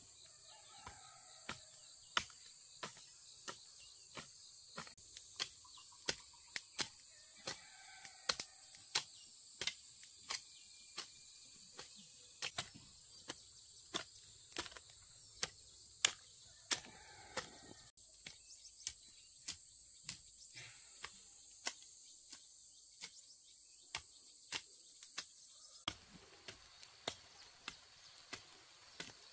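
Insects such as crickets or cicadas drone steadily in one high, even band, over a regular run of sharp knocks about one and a half a second. The insect sound thins near the end.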